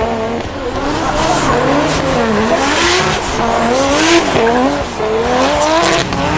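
Drift car engine revving hard, the pitch rising and falling again and again as the throttle is worked, with tyres squealing through the slide.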